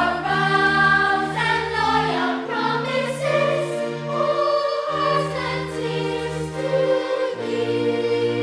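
Choral music: voices singing held notes over a steady low accompaniment.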